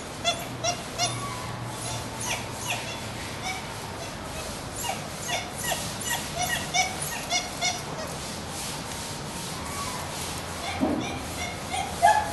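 Dholes (Asiatic wild dogs) whining: short, high squeaky whimpers repeated irregularly, one after another.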